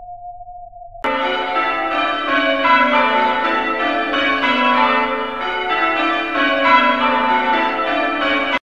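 A single steady electronic tone gives way about a second in to church bells ringing a full peal, many bells sounding at once. The peal cuts off suddenly.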